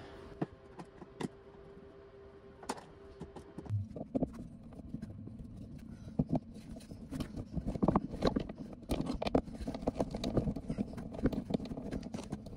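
Screwdriver backing out small Torx T15 screws from a hard saddlebag's latch hardware: irregular light clicks, ticks and scraping of the metal bit and screws against plastic, mostly from about four seconds in.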